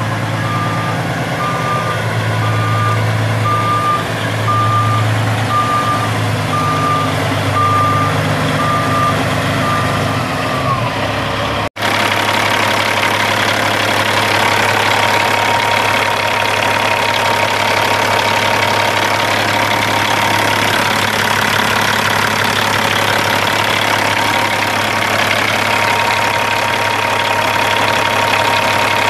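Caterpillar 3406 14.6-litre inline-six turbo diesel idling steadily, with a backup alarm beeping about once a second over it for the first eleven seconds. After a brief break the engine idles on alone, with a thin steady whine.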